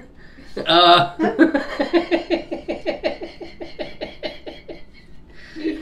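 Hard laughter: a short outburst about a second in, then a long rhythmic run of short 'ha' pulses, about five a second, that dies away near the end.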